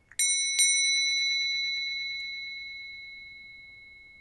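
A small hand-held bell is rung with two quick strikes about half a second apart. It then rings on as one high, clear tone that fades slowly.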